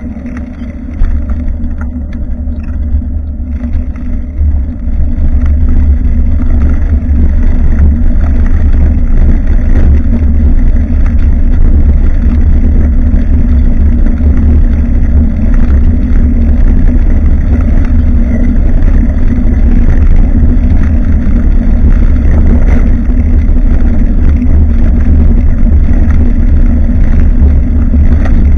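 Wind buffeting and road vibration rumbling on the microphone of a bicycle-mounted action camera while riding, with a steady hum underneath. It grows louder about five seconds in and then stays even.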